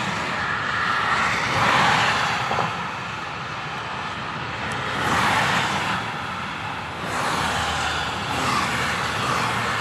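Motorway traffic: tyre and engine noise of cars and a van driving past, swelling several times as vehicles pass.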